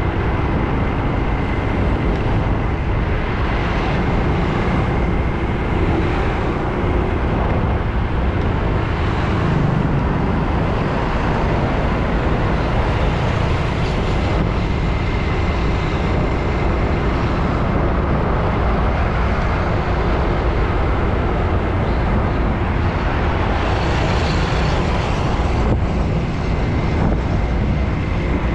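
Road traffic: a steady stream of vehicles, cars and heavier vehicles such as buses, passing with continuous engine and tyre noise. The noise swells as vehicles go by, about a quarter of the way in and again near the end.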